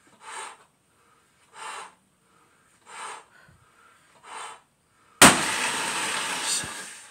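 Clear latex balloon being blown up by mouth, with a breath about every second and a half, then about five seconds in the over-inflated balloon bursts with a loud bang, followed by about a second and a half of noise that dies away.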